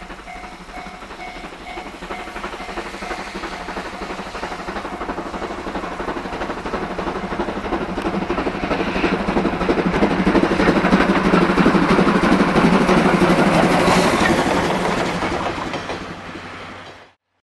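Steam locomotive C56 160, a JNR Class C56 2-6-0, passing under steam with its coaches, its exhaust and rolling wheels growing louder to a peak and then fading. The sound cuts off suddenly near the end.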